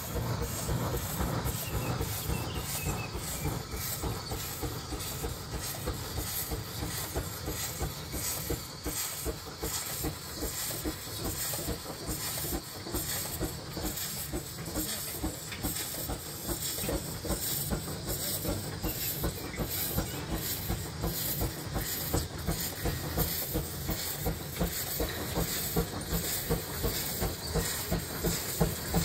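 Baker steam traction engine working under its own steam: a steady run of rhythmic exhaust chuffs from the stack over continuous steam hiss as it is manoeuvred into line with the belt.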